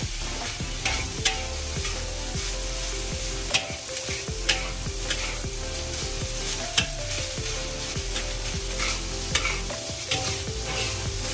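Fried rice being stir-fried in a wok: hot oil sizzling steadily under the scrape of a metal spatula, with sharp clinks now and then as the spatula strikes the wok.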